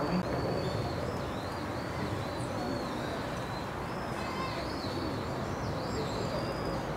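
Small birds chirping repeatedly in short, wavering high calls over a steady low background hum.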